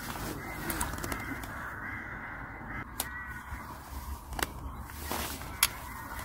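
Rain pattering on a fishing umbrella, with a few sharp ticks, and crows cawing in the background.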